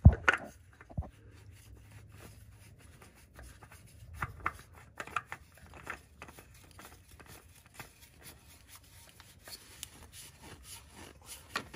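Spin-on oil filter being screwed onto its engine mount by hand: light scraping and irregular small clicks as the filter turns on its threads, with one sharp click right at the start.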